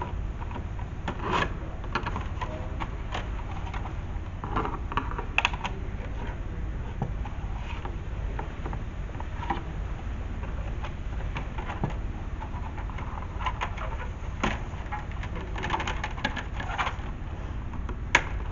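Plastic instrument-cluster cover being worked loose and handled: scattered small clicks and rattles over a steady low hum.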